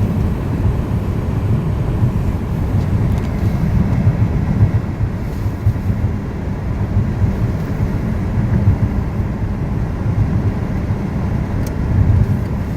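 Steady low rumble of a car driving at road speed, heard from inside the cabin: tyre, road and wind noise.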